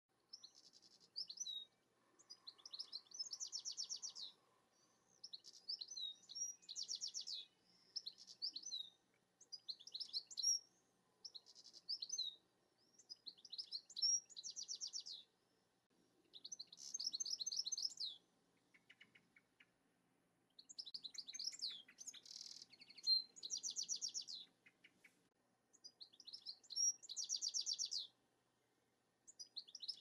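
European goldfinch singing its twittering song: short high phrases of slurred notes, each running into a fast buzzy trill, repeated with brief pauses between them.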